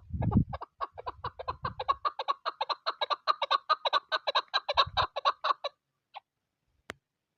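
Chukar partridge calling: a rapid, even series of short clucking notes, about seven a second, that runs for about five seconds and then stops. A low rumble of wind on the microphone is heard at the start, and a single sharp click comes near the end.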